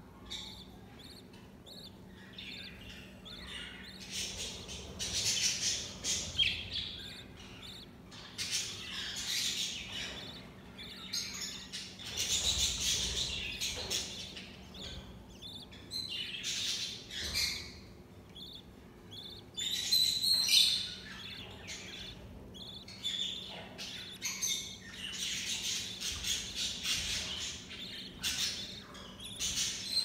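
Budgerigar chicks begging while being fed: high-pitched, raspy chirping in repeated bouts of a second or two, beginning about four seconds in.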